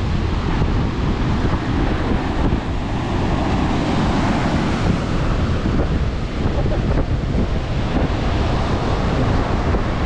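Wind buffeting the microphone, with ocean surf washing in behind it.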